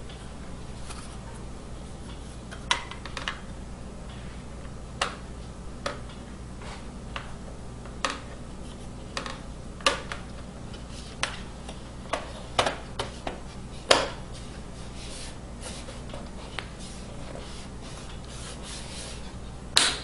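Plastic hinge-cover bezel of a Dell Inspiron 1520 laptop being pressed back into place by hand: a series of sharp, irregular plastic clicks and snaps as its tabs seat in the case, with some rubbing of plastic between them, over a steady low hum.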